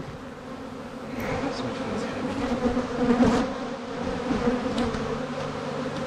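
Steady buzzing hum of many honey bees swarming around an opened hive and the frame being lifted from it, with a brief louder handling noise about three seconds in.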